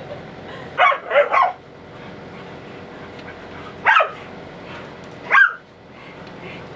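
A dog barking: three quick barks about a second in, then single barks near four seconds and near five and a half seconds.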